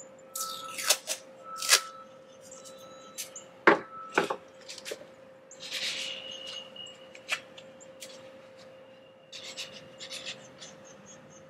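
Tape pulled off the roll and torn in short scratchy rips, with two sharp clicks about four seconds in, then a marker scratching out a label in quick strokes on tape stuck to a plastic plant pot near the end. A faint steady hum sits underneath.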